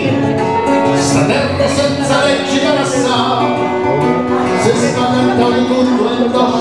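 A man singing a song, accompanied by a strummed acoustic guitar.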